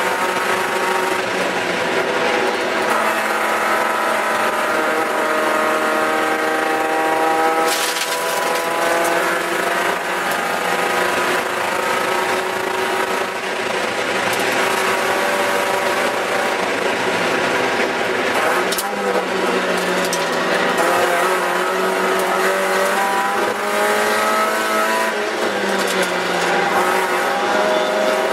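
Cabin sound of a Spec Miata's (Mazda MX-5 Miata) four-cylinder engine running hard under race load, its pitch slowly climbing and dipping a few times, notably about two-thirds of the way through and near the end, over steady road and wind noise.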